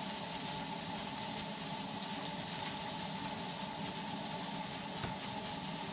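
Steady low hiss with a faint, even hum underneath, unchanging throughout, with one small tap about five seconds in.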